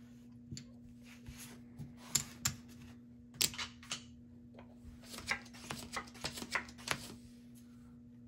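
Casino chips clicking as they are stacked and picked up, and playing cards being swept up and dealt onto a felt table: a string of light clicks and slides, loudest a few seconds in and clustered later on, over a faint steady hum.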